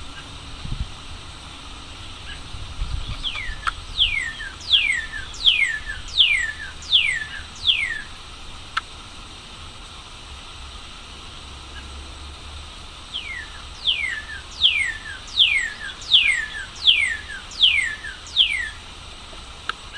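Northern cardinal singing: two runs of loud down-slurred whistles, each note falling in pitch, nearly two notes a second. The first run comes a few seconds in and the second near the end, over a faint steady background hiss.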